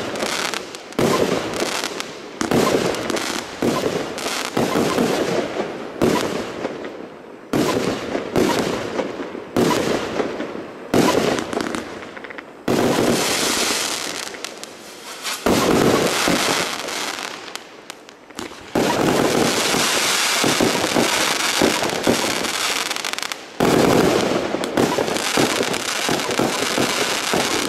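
Sturmblitz firework cake firing shot after shot: sharp bangs from the bursting shells about every second or so, with long stretches of dense crackling from the crackle stars in the second half.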